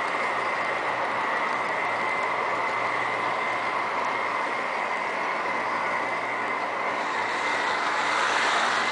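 Model train's coaches rolling past on the track: a steady rattling hiss of small wheels on the rails with a thin steady whine above it. It grows a little louder near the end as the last coach passes close.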